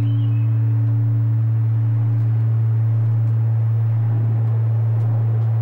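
Large bronze Japanese temple bell (bonshō) ringing on after a strike from its hanging wooden log. It holds a deep, steady hum, and a higher overtone fades out about two seconds in.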